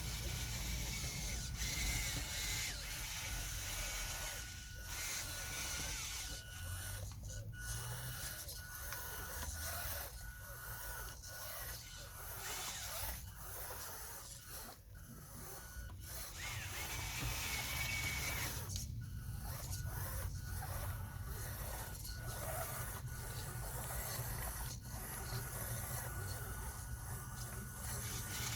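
Small electric drive motors and gearboxes of radio-controlled model construction machines running, a steady mechanical whine and grinding with a low hum underneath that dips briefly several times.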